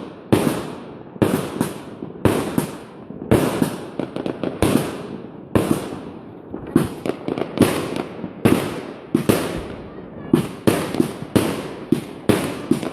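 Consumer fireworks cake firing shot after shot: a steady run of sharp bangs, about two a second, each trailing off in echo.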